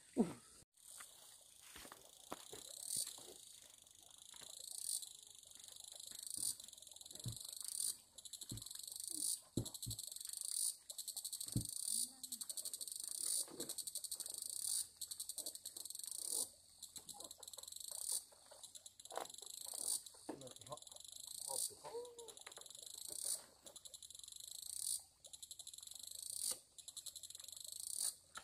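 An insect calling in high-pitched phrases. Each phrase swells for about a second and a half, rises in pitch at the end and cuts off sharply, about once every 1.7 seconds. Scattered soft knocks sound underneath.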